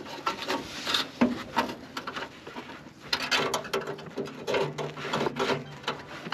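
Close-up rustling, scraping and small irregular knocks as electrical wire is fed by hand along a rusty truck frame, the winter jacket sleeve rubbing against the metal.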